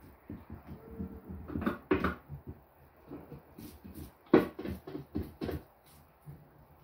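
Back of a kitchen knife scraping the scales off a raw red mullet on a wooden cutting board: a run of short scraping strokes, loudest in two clusters, about two seconds in and again between four and five and a half seconds.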